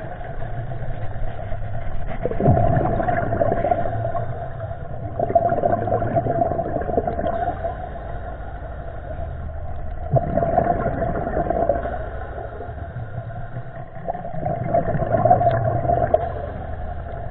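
Steady engine drone heard underwater, its hum swelling and fading every few seconds.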